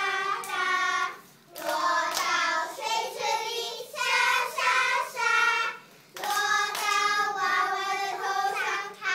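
Group of young children singing a song together, in sung phrases with a few short breaks between lines.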